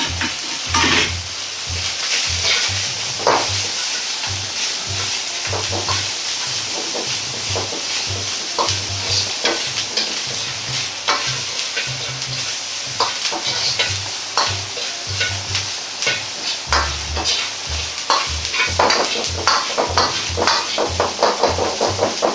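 Ground pork, green peppers and onion sizzling in a hot wok while a metal ladle stirs and scrapes them, with frequent clacks of ladle against the wok that come faster and more regularly near the end.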